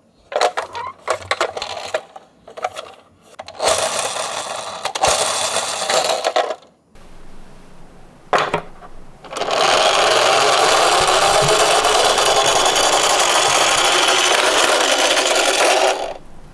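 Die-cast toy minicars clinking and clattering against each other, then a steady rattling noise of the cars rolling for about six seconds that stops suddenly near the end.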